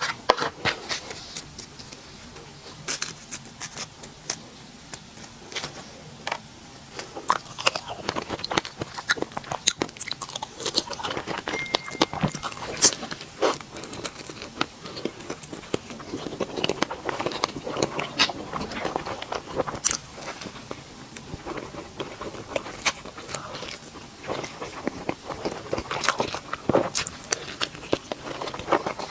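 Close-miked eating of sweets: irregular bites and chewing, with many sharp little clicks and crunches.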